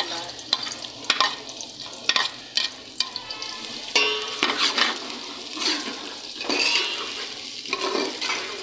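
Sliced onions sizzling in hot oil, just added to the pan, with a steady hiss. A metal ladle scrapes and knocks against the metal pot again and again as the onions are stirred, most loudly about four seconds in.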